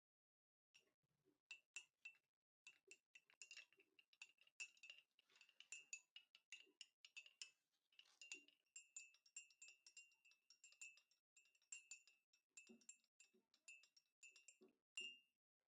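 Faint, rapid clinking of a spoon stirring a drink in a glass, several ringing clinks a second against the glass's side.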